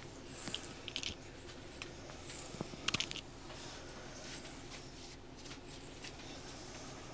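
Close-microphone ASMR sounds: soft swishing and a quick run of crisp clicks about three seconds in, over a low steady hum.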